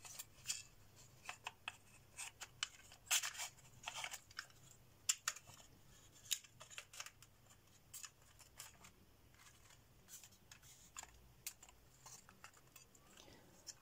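Faint, irregular light clicks and taps of thin laser-cut wooden pieces being handled and fitted back into the frame of a wooden 3D clock model kit.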